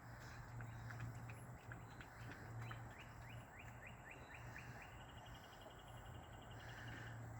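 A songbird singing faintly: a run of short chirps that come faster and faster, then a quick trill lasting about a second and a half, over a steady low hum.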